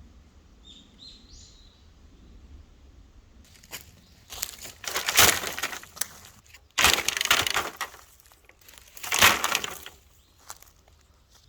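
Three loud bursts of crunching, rustling noise, each about a second long, with a few faint bird chirps about a second in.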